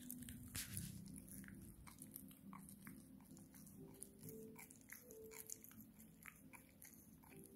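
A Cavalier King Charles spaniel gnawing on a long chew stick: faint, irregular clicks of its teeth working the stick.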